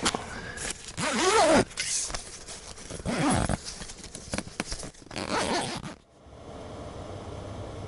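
Tent door zipper pulled shut in three long strokes amid fabric rustling. About six seconds in it gives way to the steady hum of a gas burner with a heat exchanger heating the tent.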